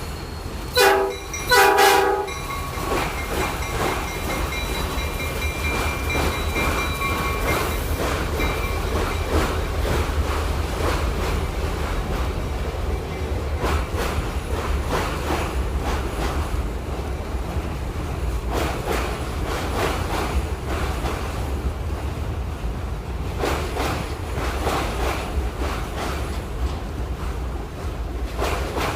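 Train horn sounding two short blasts about a second in, followed by a train rolling past with its wheels clacking over rail joints.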